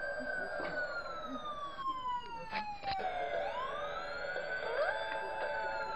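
Electronic sound effect from a child's ride-on toy airplane: a siren-like whistle that rises, then glides slowly down, twice. There are a few clicks around the middle, and a steady tone joins near the end.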